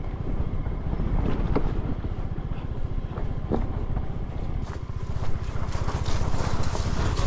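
Motor scooter engine running steadily, with scattered knocks and rattles over it.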